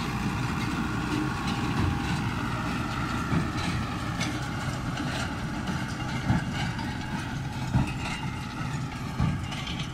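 New Holland TD95 tractor engine running steadily while pulling a Claas large square baler through windrows of cut grass, with a few sharp knocks heard over the rumble.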